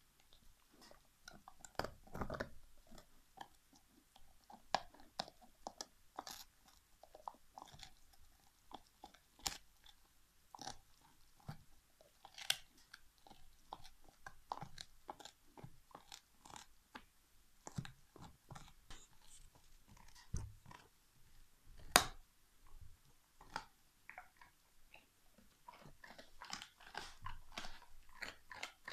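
Alaskan Malamute gnawing and crunching on a big turkey bone: a steady string of irregular cracks and crunches, with one sharp, much louder crack a little past two-thirds of the way through and a quicker run of crunching near the end.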